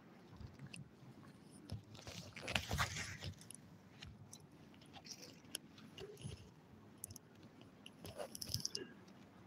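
Faint handling noises of someone moving things about at a table: rustling and light clicks and knocks, busiest about two to three seconds in and again near the end.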